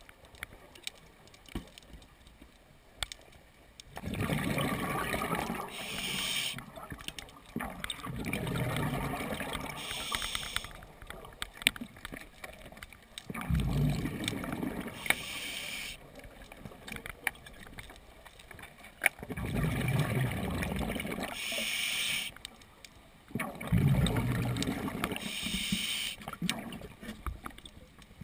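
Scuba diver breathing through an open-circuit regulator, heard underwater: a short hissing inhale, then a long gurgling rush of exhaled bubbles. The cycle repeats about every four to five seconds after a quiet first few seconds.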